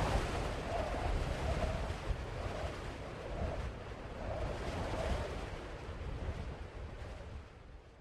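Steady rain, a even hiss of falling drops with a low rumble underneath, fading out near the end.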